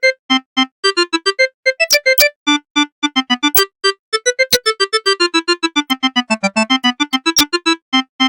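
Mitsubishi M21i mobile phone ringtone: a quick synthesized melody of short, clipped beeping notes played one at a time, with a few sharp clicks among them.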